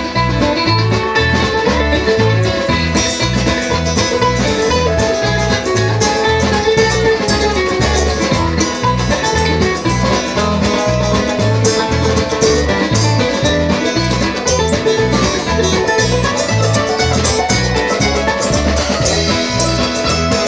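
Live bluegrass band playing an instrumental break: banjo, acoustic guitar and fiddle over a steady low beat.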